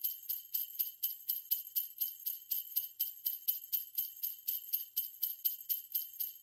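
Sleigh bells jingling in a steady rhythm, about four to five shakes a second, with only high, bright ringing and no tune.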